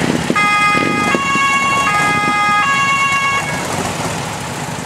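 German police car's two-tone siren (Martinshorn) sounding briefly: four tones alternating high and low, each about three-quarters of a second, starting about half a second in and stopping about three and a half seconds in. Vehicle engines run underneath.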